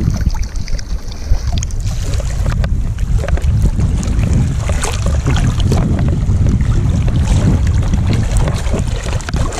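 Steady low rumble of a moving boat, with wind buffeting the microphone and water rushing past the hull.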